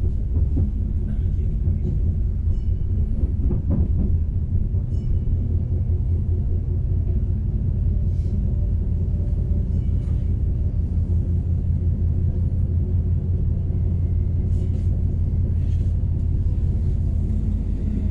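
Steady low rumble of a moving passenger train heard from inside the carriage, with a few faint clicks scattered through it.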